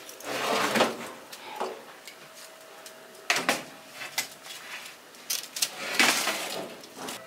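Metal baking tray scraping out over the oven rack, then several sharp knocks and clanks as it is handled and set down, the loudest of them about six seconds in.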